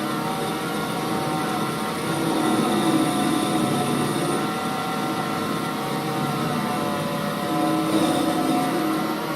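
Holbrook C8 toolroom lathe running steadily under power, its drive and gearing giving a steady whine made of several tones.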